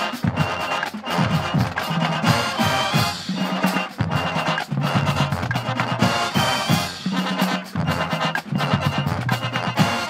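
College marching band playing a tune, brass instruments over a steady drum beat.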